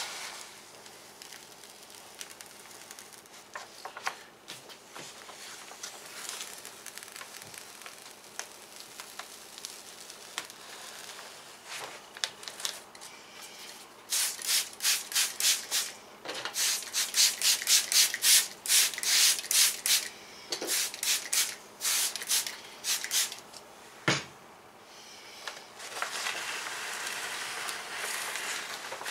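Paper backing being peeled slowly off a large vinyl decal and rubbed down, a soft rustling. About halfway in, a hand spray bottle is pumped in quick runs of squirts, several a second, misting soapy water onto the decal's sticky side. Paper rustles again near the end.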